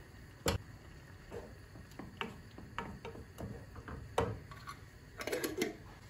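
A wooden spoon knocks and scrapes against a glass jar and a small saucepan while tomato paste is scooped into the pan: a run of irregular sharp taps, two of them louder. A quick cluster of clicks comes near the end.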